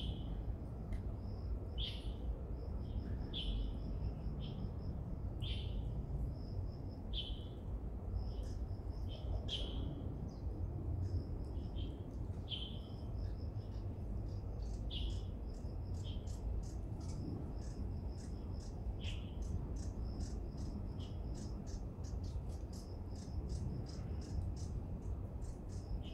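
A bird repeating a short falling call about every one to two seconds over a steady, rapidly pulsing insect trill, with a low steady rumble underneath.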